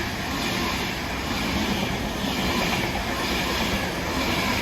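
An InterCity 225 express led by driving van trailer 82214 running through the station without stopping, with a steady rush of wheels on the rails.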